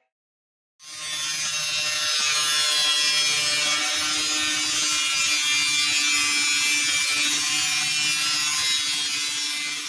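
Electric arc welding with a Kawasaki 200 A inverter mini welder: a steady, loud crackling sizzle of the arc with a rough buzz beneath it, starting about a second in and lasting some nine seconds.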